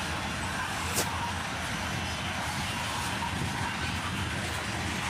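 Freight cars rolling past on the rails: a steady rumble of wheels on track, with one sharp click about a second in.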